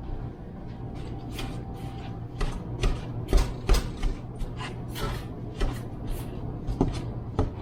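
Irregular clicks and knocks of kitchen cookware and utensils being handled, about a dozen sharp knocks loudest around the middle, over a steady low hum.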